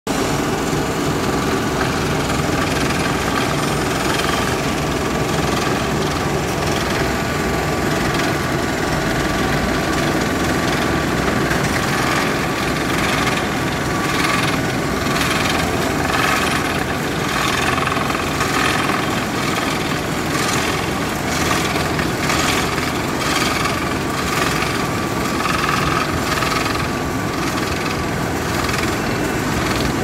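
Road construction machine running loud and steady, its engine and mechanism giving a continuous mechanical clatter with a steady hum. About halfway through a regular pulsing sets in, roughly once a second.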